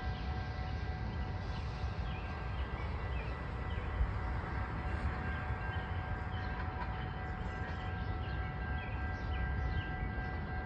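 Outdoor ambience beside empty railway tracks: a low, uneven rumble with a few faint steady tones, and birds chirping now and then over it.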